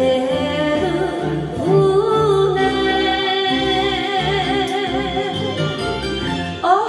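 A woman singing a Japanese song into a karaoke microphone over the recorded backing track, with long held, wavering notes over a steady bass beat.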